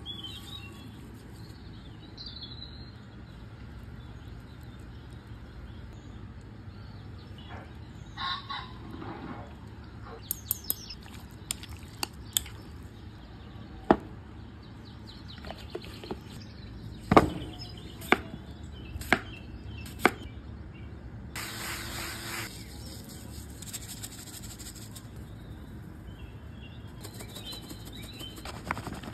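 Gloved hands mixing raw beef strips with marinade and seasoning in a glass bowl, a wet handling sound with a dozen or so sharp clicks and taps in the middle and two short stretches of rustling. Birds chirp faintly near the start and the end.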